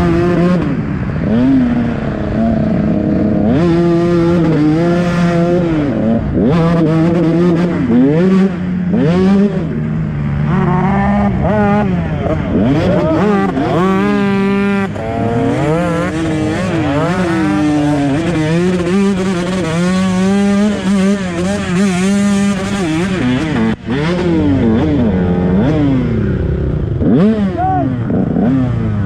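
KTM 125 SX single-cylinder two-stroke dirt bike engine revving, its pitch climbing and dropping over and over as the throttle is worked, with a brief sharp dip in sound about 24 seconds in.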